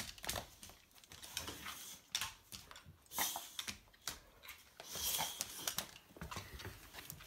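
A boxer dog moving about at close range on a parquet floor: irregular clicks and scuffs, with a few short noisy bursts about three and five seconds in.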